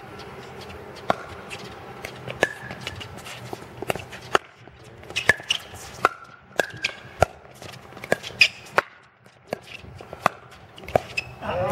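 Pickleball rally: solid paddles striking a hollow plastic ball, a quick series of sharp pops, some with a short ringing tone, spaced irregularly as the ball goes back and forth.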